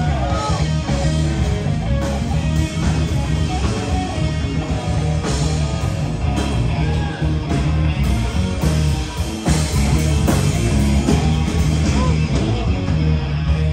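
Live rock cover band playing: electric guitar over bass and drums, steady and loud.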